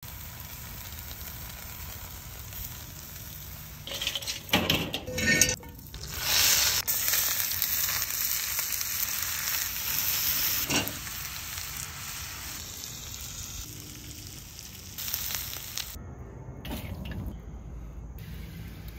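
Food sizzling and frying on a charcoal grill: sliced green peppers and onions sizzle in a cast iron skillet as metal tongs stir them. A few sharp knocks come about four to five seconds in, the sizzle is loudest in the middle, and the sound drops away sharply near the end.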